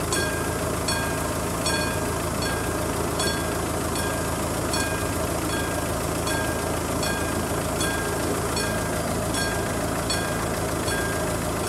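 Level-crossing warning bell of the classic striking type ringing steadily, a little more than one strike a second. A steady low engine rumble runs underneath.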